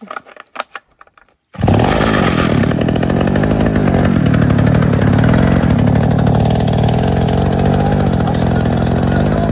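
A few light knocks, then about a second and a half in a petrol engine cuts in suddenly and runs steadily at a constant pitch.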